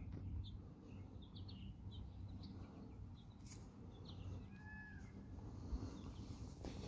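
Faint outdoor ambience: distant small birds chirping in short, scattered notes, with one brief falling call about two-thirds of the way through over a steady low hum.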